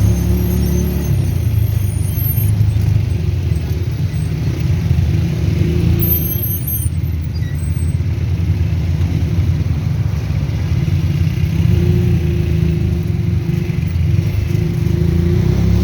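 Steady low rumble of a motor vehicle on the move, with road noise.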